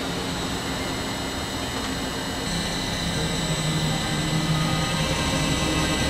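Steady machine hum of a friction stir welding machine with its weld head in motion: a low drone under several steady high whining tones. The tones shift about two and a half seconds in, and the hum grows slowly louder.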